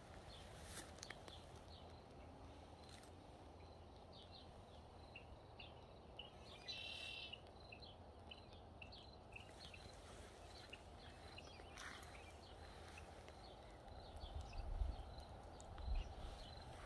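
Faint birds chirping and calling over quiet outdoor ambience, with a short trill about seven seconds in. A few low rumbles near the end.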